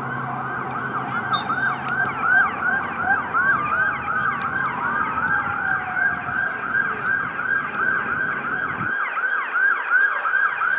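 Emergency vehicle siren in a fast yelp, about three rising-and-falling sweeps a second, with a slower wailing siren tone gliding beneath it for the first several seconds. A low rumble underneath stops suddenly about nine seconds in.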